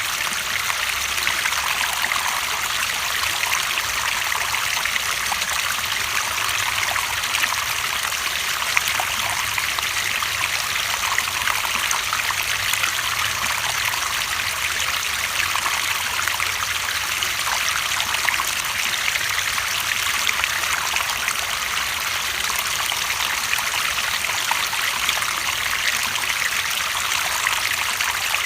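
Running water flowing steadily, a continuous trickling and splashing with no change in level.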